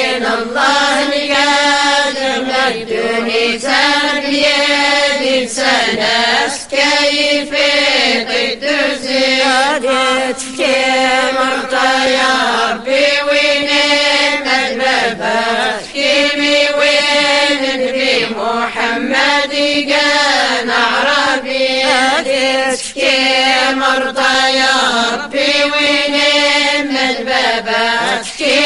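A women's vocal group chanting a devotional madih praise song, the voices moving together as one line in repeated sung phrases of a second or two each, with short breaths between them.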